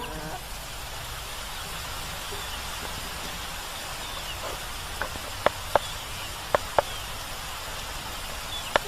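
Steady background hiss with no music or voices, broken in the second half by a few sharp clicks, mostly in pairs about a quarter second apart.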